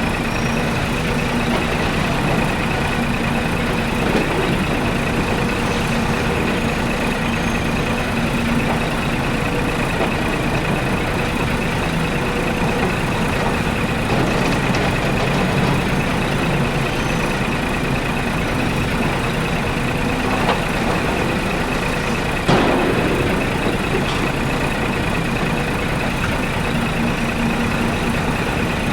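Miniature excavator working as it loads sand into a miniature truck: a steady mechanical running noise with a constant high whine. A single sharp click comes about two-thirds of the way in.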